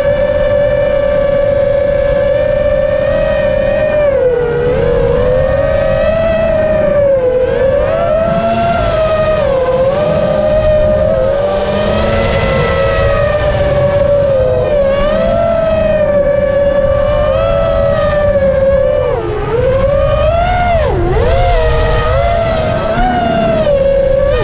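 FPV freestyle quadcopter's brushless motors and propellers whining, recorded by the onboard camera. The pitch holds steady at first, then dips and climbs again and again with throttle changes, with several sharp plunges near the end. Wind rushes over the microphone underneath.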